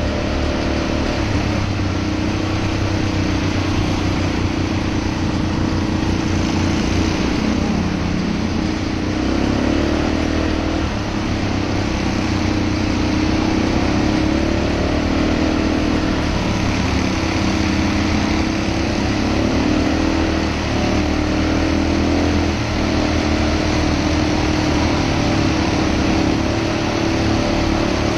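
ATV engine running steadily while driving, its pitch rising and falling a little with the throttle, over a continuous rush of road and wind noise.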